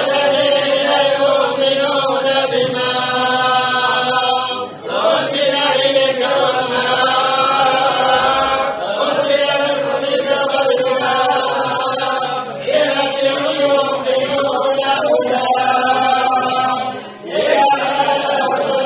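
A group of men chanting together in unison, in long drawn-out phrases of about four seconds each, broken by short pauses for breath.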